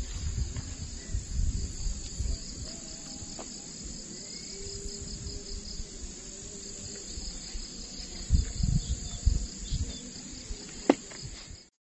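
Steady high-pitched chorus of insects, with an irregular low rumble underneath; it cuts off just before the end.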